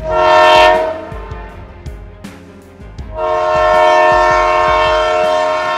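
Diesel locomotive horn sounding a short blast, then a long held blast starting about three seconds in, over a low steady rumble.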